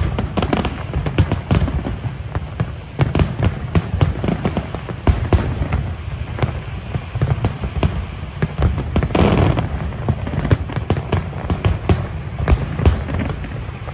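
Large aerial fireworks display: shells bursting in quick succession, a dense run of sharp bangs and crackles over a continuous low rumble.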